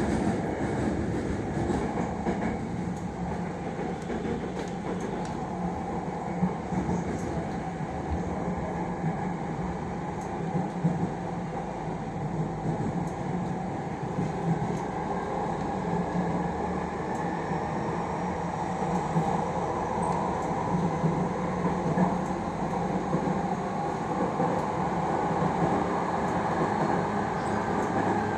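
Jakarta MRT electric train running at speed between stations, heard inside the passenger car: a steady rumble of wheels on rail with a low hum.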